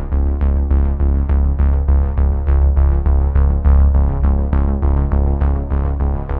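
Background electronic music with a synthesizer: a steady pulse of about three notes a second over a heavy held bass.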